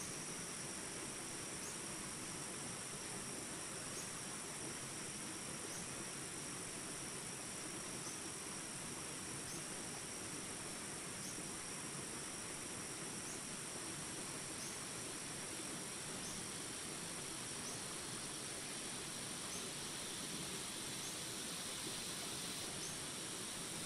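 Small river rapids rushing steadily beneath a constant high-pitched insect drone, with a short chirp repeating about every second and a bit. Near the end another higher sound joins in.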